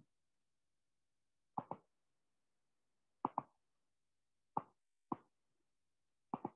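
Computer mouse clicking: five short, sharp clicks about a second apart, three of them quick double clicks.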